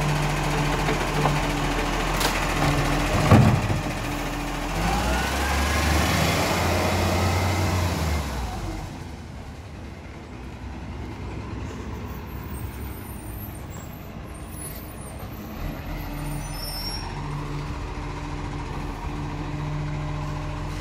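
Side-loading garbage truck's automated arm emptying a wheelie bin over the engine running, with a sharp bang about three seconds in. The engine then revs up as the truck pulls away and drops to a quieter steady running as it moves off down the street.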